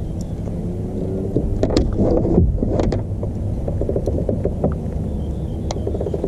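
Steady low rumble of wind buffeting the camera microphone, with a cluster of short clicks and knocks from the fishing reel and rod between about one and a half and three seconds in, and a few more later as the line is reeled and cast.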